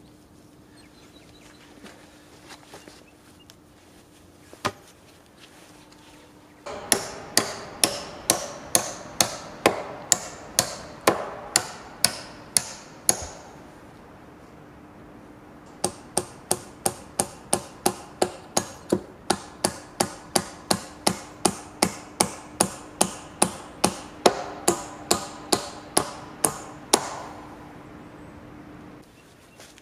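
Hammering on a log post-and-beam frame: one lone blow, then two long runs of steady hammer blows, about two a second, with a short pause between the runs.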